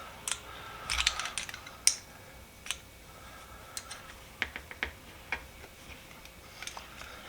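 Irregular small metal clicks and taps of hand tools: an adjustable wrench working the small nut on a pair of old, rusted BX cable cutters to take them apart.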